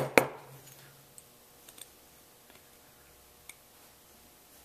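Small metal clicks as a screwdriver works a revolver's side-plate screw out: two sharp clicks right at the start, then only a few faint ticks.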